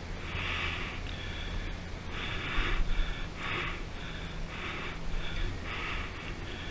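A person breathing hard, with loud panting breaths about once a second, over a low steady hum.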